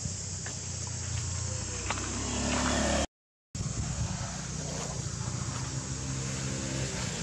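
A motor vehicle's engine humming steadily and growing louder toward about three seconds in, over a constant high insect drone. The sound cuts out completely for half a second, then the engine hum and insects resume.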